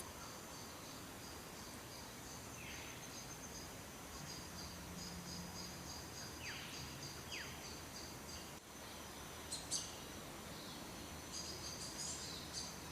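Steady high-pitched insect chorus, with a few short falling chirps and a brief sharp tick about ten seconds in.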